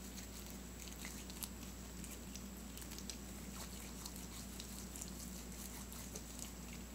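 Homemade glue-and-laundry-detergent slime being squeezed and kneaded in the hands: faint, irregular little clicks and squishes, over a steady low hum.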